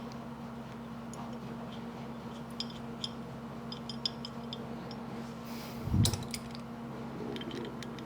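Small metal parts of a Stanley No. 4 hand plane's frog clicking and ticking as they are handled and screwed together, with one dull thump about six seconds in, over a steady low hum.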